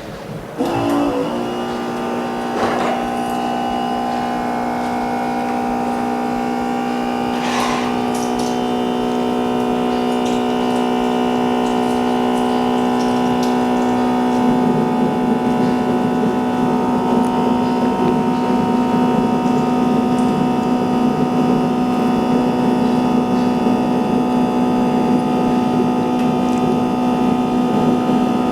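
An electric repair machine switches on about half a second in and runs with a steady hum. A rougher, noisier layer joins it about halfway through.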